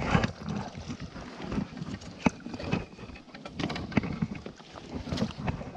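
Water sloshing with irregular sharp clicks and knocks from rod and tackle handling while a hooked black bass is played from a float tube, with some wind on the microphone.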